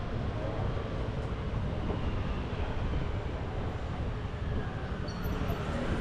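Street traffic noise with wind buffeting the microphone in a steady low rumble.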